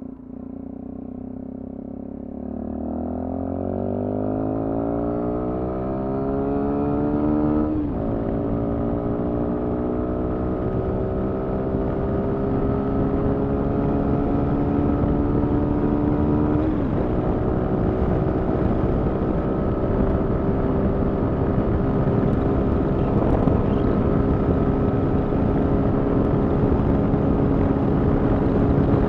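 Sinnis Terrain 125's single-cylinder engine, fitted with an aftermarket Toro exhaust, accelerating through the gears. Its pitch rises and breaks at upshifts about eight and seventeen seconds in, then holds steady at cruising speed, with wind rush growing as speed builds.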